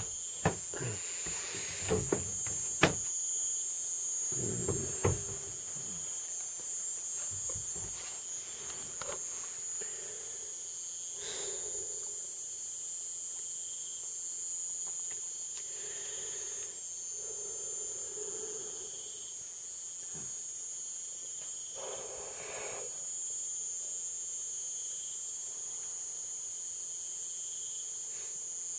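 Steady, high-pitched chorus of night insects, with a few sharp knocks in the first few seconds.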